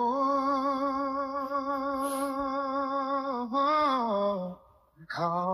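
An unaccompanied solo voice holds one long wordless sung note with a slight waver for about three and a half seconds. It then moves through a shorter phrase that rises and falls, and after a brief pause starts a new falling phrase near the end.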